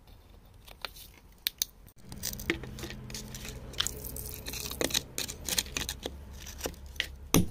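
A metal blade scraping and picking at wet clay and grit around an embedded stone: a run of small scrapes, clicks and crunches. A low steady hum comes in about two seconds in, and there is a louder knock near the end.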